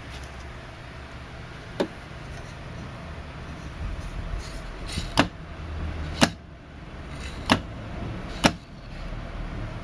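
Five sharp knocks or clicks, spaced irregularly, over a low steady rumble.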